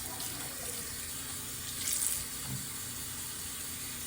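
Tap water running steadily into a sink as a wig is rinsed of shampoo under it, briefly louder about two seconds in.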